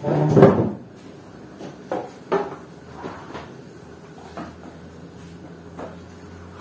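A door shut with a solid thump, followed by a few lighter knocks and clatters as things are handled.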